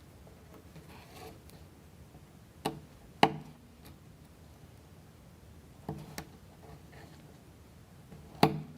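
Wooden toothpicks being cut to length for a wooden model kit: five sharp snips, mostly in pairs, the loudest about three seconds in.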